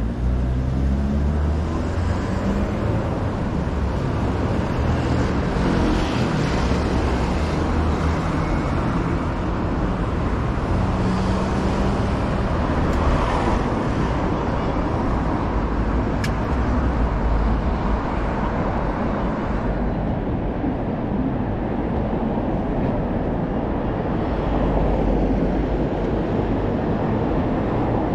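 Busy city street traffic passing close by: a steady engine and tyre rumble, with engines speeding up near the start and again about six seconds in.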